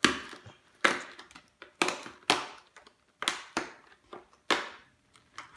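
Perforated cardboard door of an advent calendar being pushed in and torn open by fingers: a series of about seven short, sharp cardboard tears and cracks, each fading quickly.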